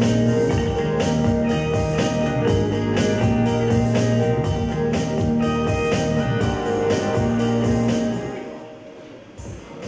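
Instrumental music with guitar and a steady beat, fading out near the end.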